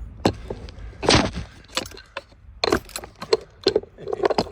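Irregular sharp clicks, knocks and rattles of small hard objects being handled, about half a dozen in all, the loudest about a second in.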